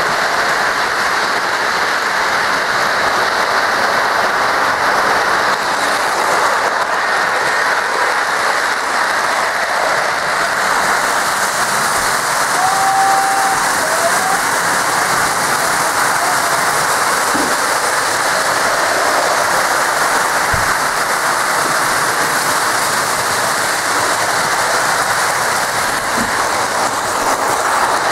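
Lionel O-gauge model trains running on three-rail track: a steady rolling rumble and rattle of wheels and motors, with a short high tone about halfway through.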